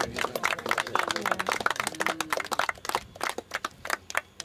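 A small group of people clapping by hand, thick for about three seconds and then thinning to scattered claps, with faint voices underneath.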